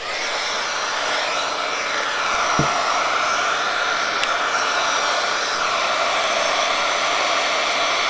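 Small handheld heat gun switched on and running steadily, blowing hot air to shrink a shrink-wrap sleeve around a sublimation mug: a rush of air with a steady whine in it. A brief low bump about two and a half seconds in.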